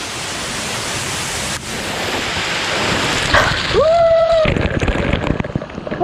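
Waterfall water pouring and splashing over a man's head, with a long yell from him a little under four seconds in, at the cold water.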